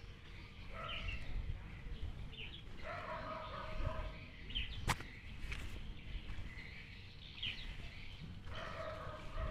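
Distant farm animal calls, three drawn-out cries, over a low rumble, with short bird chirps and one sharp click about five seconds in.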